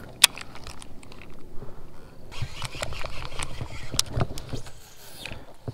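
Baitcasting rod and reel being handled while casting and retrieving: one sharp click about a quarter second in, then irregular small clicks and scratchy rustles.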